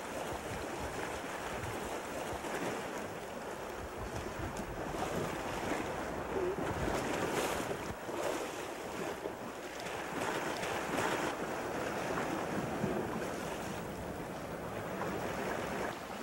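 Sea surf washing and sloshing against the shore in uneven swells, with wind buffeting the microphone.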